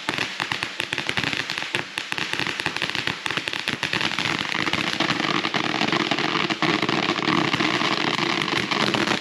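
Consumer fireworks going off: a dense, continuous crackle of rapid sharp pops over a steady hiss.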